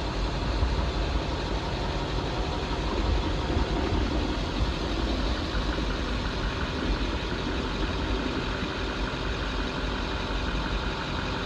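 Chevy Silverado 3500's 6.6L Duramax V8 diesel engine idling steadily.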